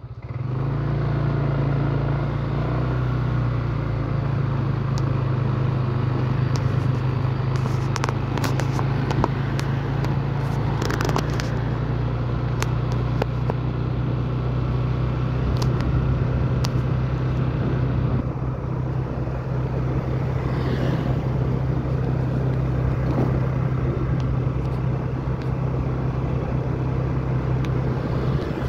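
A vehicle engine running steadily, a constant low hum, with scattered light clicks and ticks, most of them about a third of the way through.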